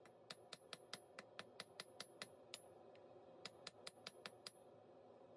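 Faint hand hammer blows on a thin red-hot bar over an anvil. The light, quick strikes come about five a second, each with a short high ring. There are two runs, split by a brief pause just past halfway.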